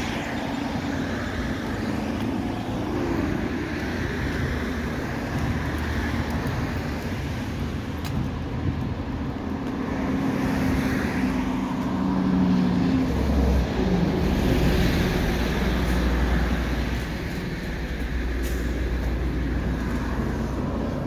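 Road traffic: cars driving by, a steady hum with low rumble.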